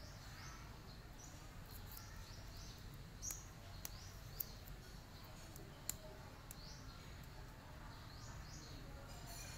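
Faint background ambience with small birds chirping: short, repeated high chirps that fall in pitch, with a few sharp clicks near the middle.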